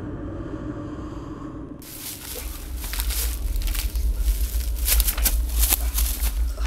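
Feet scuffling and crunching through dry leaf litter as two men stumble and grapple, with many short crackles over a constant low rumble. These start abruptly about two seconds in, after a muffled low drone.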